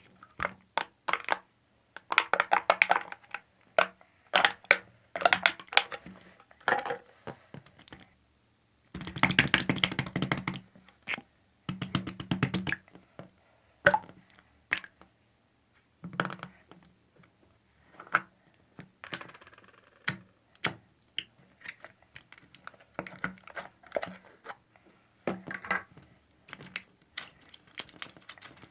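Slime being pressed, poked and squished by hand, making bursts of crackling and popping clicks with short pauses between them; the densest run of crackles comes about nine seconds in.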